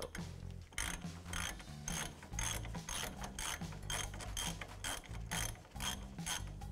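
Hand ratchet with a socket backing out a loosened brake caliper bracket bolt. Its pawl clicks in a steady run of about three clicks a second.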